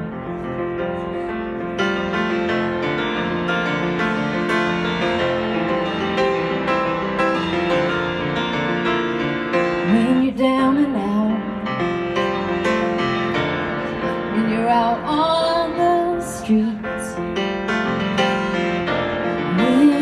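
Grand piano played as a flowing accompaniment, with a woman's voice coming in on long sung notes about halfway through, again a few seconds later, and near the end.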